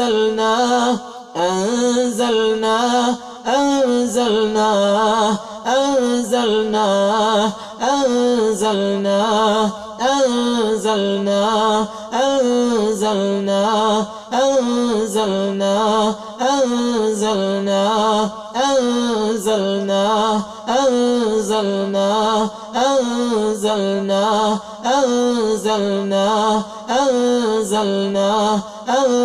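A man chanting a short Quranic phrase over and over in melodic ruqyah recitation, each repeat about two seconds long.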